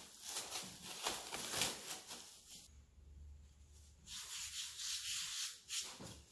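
Plastic cling film crinkling and rustling as it is peeled off a block of dough. After a short lull comes softer brushing and rubbing as a hand dusts flour over the dough.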